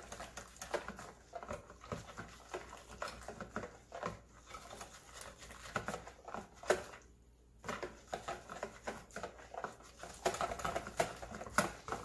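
Wire whisk beating a thick rice-flour and tapioca batter in a plastic bowl: rapid, uneven clicks and scrapes of the wires against the bowl, with a short pause about seven seconds in. The batter is part-cooked and starting to clump, and is being whisked smooth.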